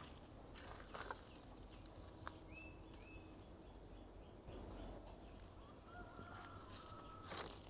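Faint outdoor ambience: a steady high insect drone, with a bird chirping twice about two and a half seconds in and a longer held call near the end. A few sharp clicks and rustles come from footsteps and handling.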